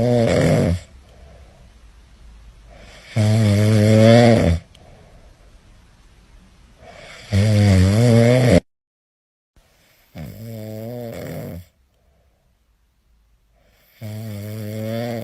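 Snoring: five long snores, one about every three to four seconds, the last two quieter than the first three.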